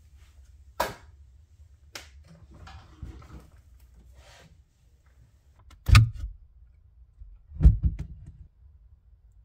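Handling noise around an open ceiling hatch: a couple of sharp knocks and a stretch of rustling among cables, then two heavy thumps, about six and eight seconds in.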